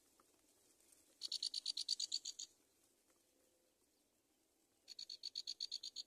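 Nestlings begging at the nest: two bursts of rapid, high-pitched chirps, about ten a second, one starting a second in and one near the end.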